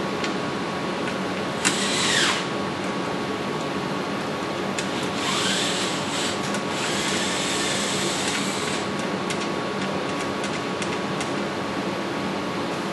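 Mounting bolts being threaded by hand into a laser arm's wall plate: a few short metal squeaks that slide in pitch and light clicks, over a steady hiss with a faint hum.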